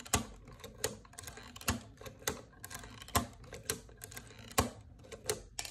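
Lego Technic counter-snapping mechanism being worked by hand: a run of sharp plastic clicks, roughly two a second at uneven spacing, as the toggle lever trips and the frame snaps back against the push.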